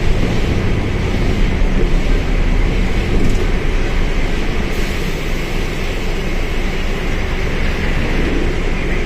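Mercedes-Benz OF1721L bus running: its diesel engine and drivetrain make a steady, loud rumble with a hiss over it, easing slightly about five seconds in.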